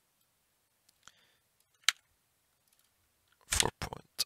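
Computer mouse and keyboard clicks: a faint click about a second in, a single sharp click just before two seconds, then a quick run of louder keystrokes near the end as a number is typed in.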